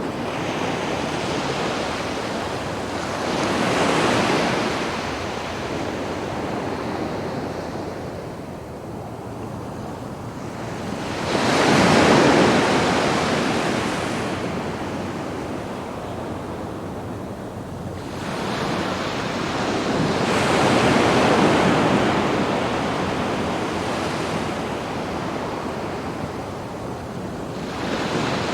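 Sea waves breaking and washing up on a sandy beach: a steady rush of surf that swells into a louder surge about every eight seconds, four times, the one about twelve seconds in the loudest.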